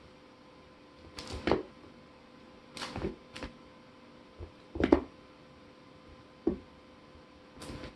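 Short scuffs and thumps on a hardwood floor from a kitten pouncing and scrambling after a dangled toy, about six of them at irregular intervals.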